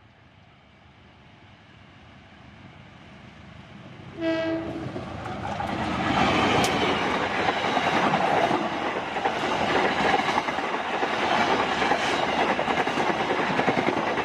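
Indonesian passenger train approaching, sounding one short horn blast about four seconds in, then passing close at speed with loud rushing noise and the rhythmic clickety-clack of wheels over the rails.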